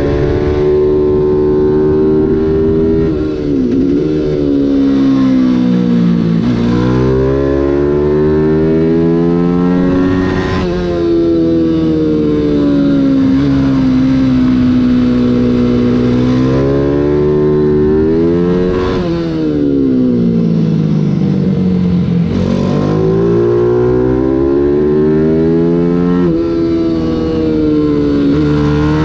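Mini GP 140 race bike's small single-cylinder four-stroke engine at racing pace, heard from on board. Its revs climb hard, drop sharply at gear changes, then fall away and pick up again through the corners, several times over.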